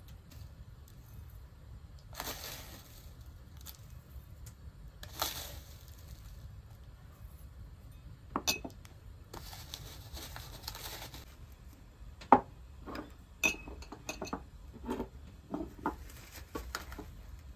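Dry shredded pastry strands rustling and crinkling as pinches are pulled from a plastic tray and dropped into small glass dessert bowls. In the second half, the glass bowls clink and tap sharply several times as they are moved on a wooden table; the loudest clink comes about twelve seconds in.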